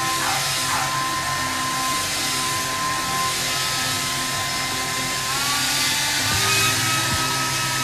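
Handheld hair dryer blowing steadily on a dog's long coat, with a thin whine that steps up slightly in pitch about five seconds in.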